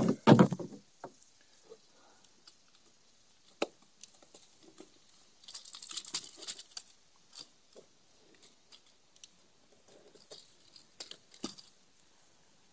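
Sparse light clicks, taps and rustles from a person moving and handling things on a boat deck right by the microphone, with a longer crinkly rustle about six seconds in.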